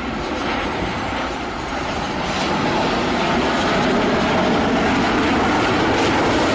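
Boeing 737-800 airliner's jet engines running loud on the landing rollout just after touchdown, a steady rushing noise that builds over the first few seconds and then holds.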